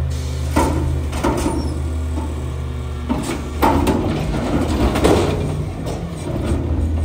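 Autocar WX front-loader garbage truck's engine running steadily while its forks dump a steel commercial container of bulky waste into the hopper. A series of loud metallic bangs and clanks rings out as the bin and the junk in it hit the hopper.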